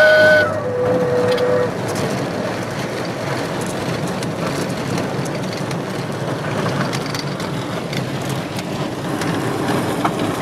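Cabin noise of a Cessna 207 rolling along a gravel airstrip: a steady mix of engine, propeller and airframe noise heard from inside the cabin. The last notes of background music end within the first two seconds.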